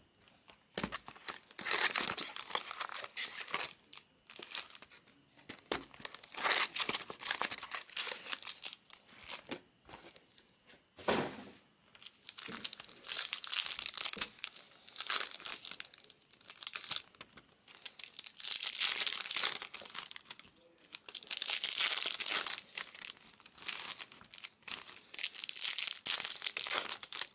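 Foil trading-card pack wrappers of Bowman Chrome hobby packs being crinkled and torn open by hand, in irregular stop-start bursts of crackling.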